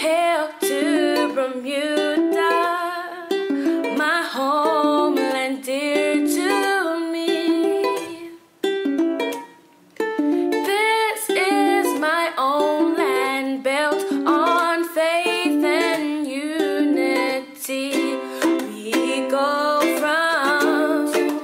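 A young woman singing a song while strumming a ukulele. The sound drops out briefly about nine seconds in, then the singing and playing carry on.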